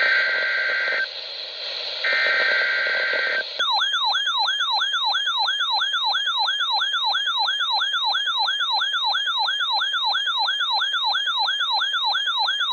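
Emergency alert test tones from a NOAA Weather Radio weekly test. First come the SAME digital header bursts: two harsh buzzing data bursts about a second apart. About three and a half seconds in, an electronic warbling alert tone takes over, sweeping up and down about three times a second.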